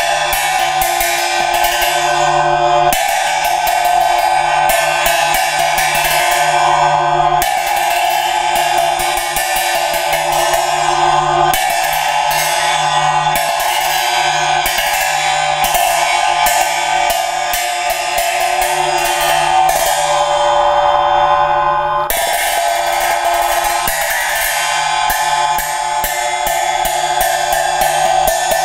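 Tibetan silnyen, a pair of horizontally held ritual cymbals, played in the Drikung Kagyu manner. Each cycle opens with a full clash and runs into a quickening series of strokes, while the cymbals keep ringing throughout.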